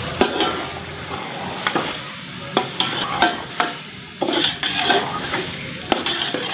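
Freshly added potato batons sizzling in hot ghee and masala in a metal pot, stirred with a slotted metal spoon that knocks and scrapes against the pot about eight times.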